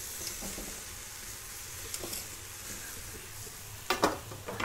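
Curry sauce sizzling steadily in a small black balti pan over a gas flame as chargrilled chicken pieces go into it, with a couple of sharp metal clicks from a utensil against the pan near the end.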